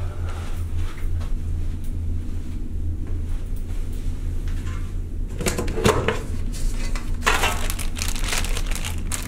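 A steady low hum runs throughout. From about five seconds in come rustling and crinkling as a round metal tin is opened and the plastic wrapping inside is handled.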